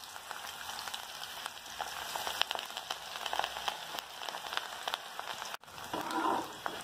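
Hot oil sizzling and crackling in an aluminium kadai as spinach, onion and wheat-flour pakoda batter deep-fries, with a dense patter of fine crackles. The sound cuts out for an instant near the end.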